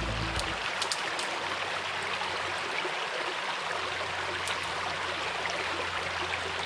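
Small brook rushing steadily over rocks, with a few sharp twig snaps from footsteps in dry brush.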